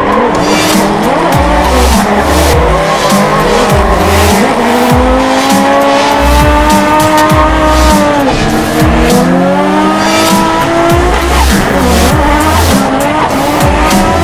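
Nissan R32 Skyline drift car's turbocharged RB25DE+T straight-six revving hard during a drift, its pitch climbing and falling with the throttle, with a long climb that drops off sharply just past halfway, and tyres squealing. Background music with a steady bass beat runs underneath.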